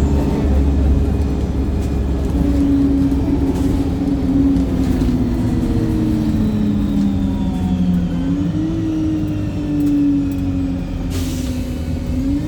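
Wright StreetLite single-decker bus running at speed. Its engine and driveline drone steadily with a whine that slowly sinks and then jumps back up, once about eight seconds in and again just before the end. A short hiss of air comes near the end.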